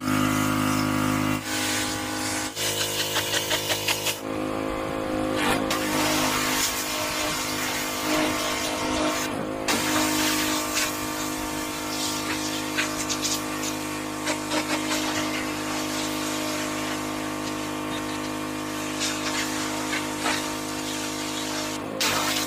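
Pressure washer running steadily, its motor and pump droning under the hiss of the water jet. The tone and level jump abruptly a few times.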